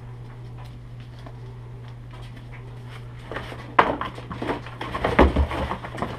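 Clattering and knocking as a rifle is handled and lifted out of its shipping box: a few seconds of steady low hum, then a run of clatters starting about three seconds in, with sharp knocks near four and five seconds.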